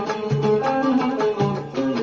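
Instrumental passage of an Algerian chaabi song: the ensemble plays a melody in short, distinct notes on plucked strings, with no singing.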